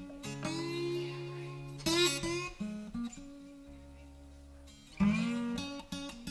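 Background music: guitar playing plucked, ringing notes, with loud strummed chords about two seconds and five seconds in.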